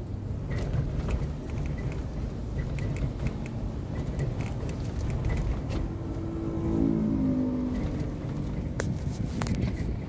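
Slow, congested road traffic heard from inside a car: a steady low rumble of engines and tyres, with an engine note rising and falling briefly about seven seconds in and a few light clicks near the end.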